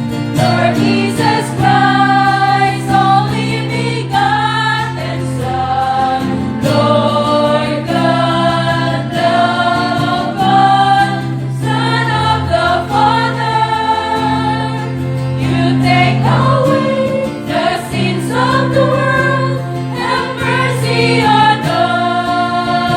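Church choir singing, voices holding notes a second or two each in a slow sacred song, over a steady low sustained accompaniment.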